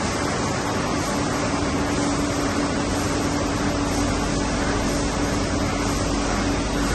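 Nilpeter FB 3300 servo-driven UV flexo label press running, a steady whirring machine noise with a constant low hum.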